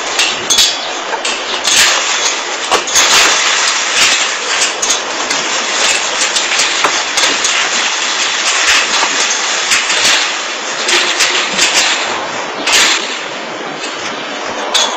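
Chain-link gate rattling and clanking again and again as a dog climbs up it, over a steady loud hiss.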